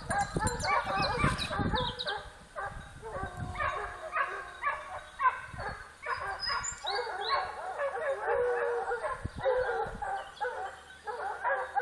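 A pack of Porcelaine hounds and a beagle baying in full cry, many short calls overlapping in a continuous chorus: hounds giving tongue on a wild boar's scent.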